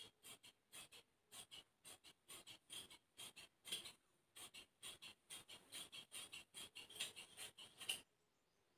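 Large tailoring scissors snipping through cloth, a quick run of short crisp cuts about four a second that stops about eight seconds in.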